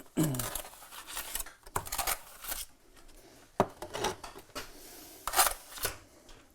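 Steel trowel scraping and working wet mortar, a run of separate rasping strokes against the mortar board and brick, the sharpest about three and a half seconds in and again near five and a half seconds.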